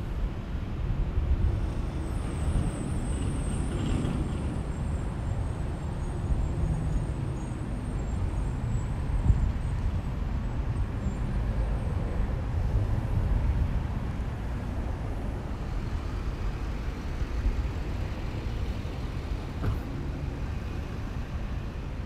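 Steady low rumble of road traffic, with a faint high-pitched whine for several seconds near the start.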